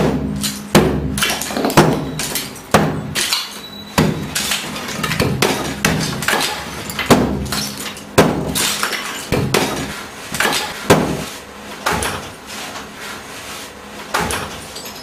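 Repeated blows breaking chunks out of a plastered hollow-brick wall, each knock followed by crumbling plaster and rubble falling. The blows come about once a second and thin out near the end.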